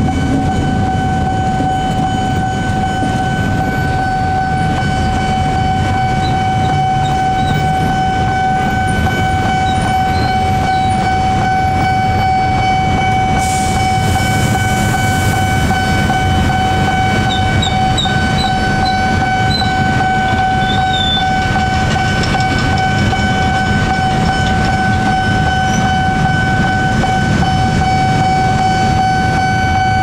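Level-crossing warning siren sounding one continuous, unbroken high tone over a steady low rumble, with a short hiss about halfway through.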